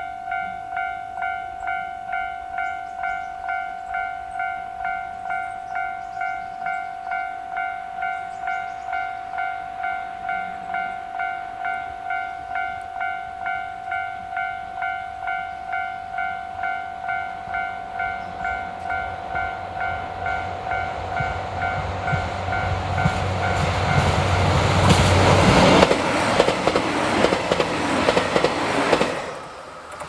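Japanese level crossing's electronic warning bell ringing in a steady repeating ding, about three strokes every two seconds. A JR Hokkaido KiHa 261 series diesel express then approaches and passes, its engine and wheel noise growing from about two-thirds of the way in. The bell stops about four-fifths of the way in, and the train noise cuts off sharply near the end.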